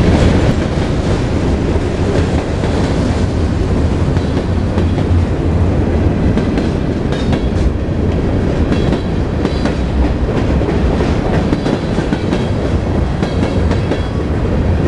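Freight train cars rolling past close by: a steady, heavy rumble of steel wheels on rail, with faint high squeals here and there from about halfway through.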